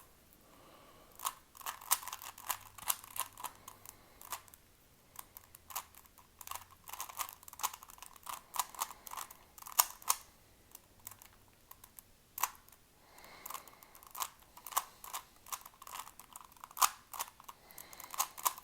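Rubik's cube being turned by hand: rapid plastic clicks of its layers rotating, in quick bursts with brief pauses, as the last layer is worked through.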